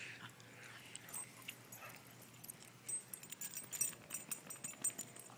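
Dog collar tags jingling as the dogs run and play, a quick run of light metallic clinks from about three seconds in.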